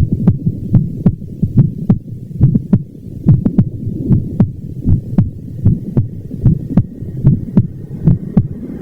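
Heartbeat: a steady, even rhythm of low thuds, each with a sharp click on its onset, as heard through a stethoscope-style recording.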